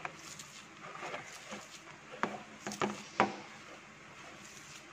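A hand rubbing and squeezing grated coconut with spice powders on a plate: soft, faint scraping, with a few short clicks of fingers against the plate a little past the middle.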